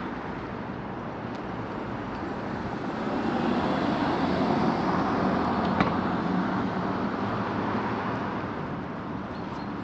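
Road traffic noise with a vehicle passing by, swelling a few seconds in and fading again. A single brief click is heard about six seconds in.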